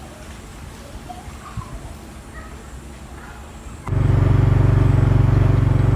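Faint outdoor background with a few small bird-like chirps. About four seconds in, a loud, steady buzzing drone starts abruptly, the hum of a Malaysian wau kite's hummer (busur) vibrating in the wind.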